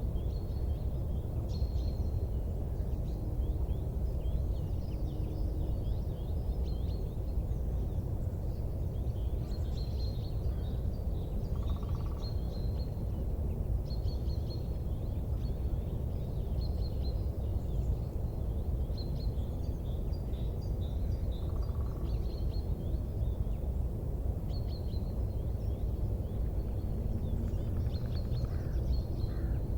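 A steady low rumble with many faint, short high-pitched chirps scattered throughout.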